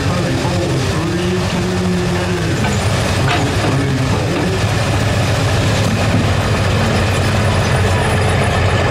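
Diesel pickup truck engine running loud. Its pitch wavers in the first couple of seconds, then holds steady.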